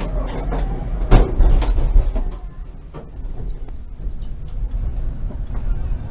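Konstal 105Na tram running with a steady low rumble, broken by a cluster of sharp knocks and clatter in the first two seconds, the loudest about a second in.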